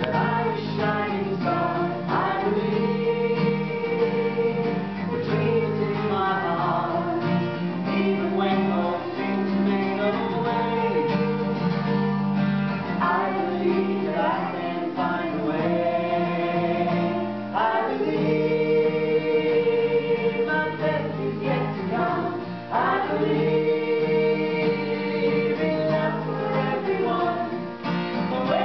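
Voices singing a song to acoustic guitar accompaniment, the melody moving in phrases with long held notes.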